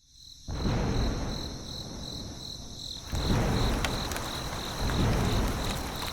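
A steady, high insect-like chirping trill pulsing several times a second, over a rushing noise that comes in about half a second in and grows louder around three seconds in.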